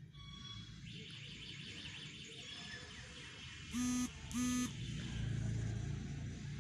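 Two short, loud beeps with a steady buzzy pitch, about half a second apart, near the middle of the stretch.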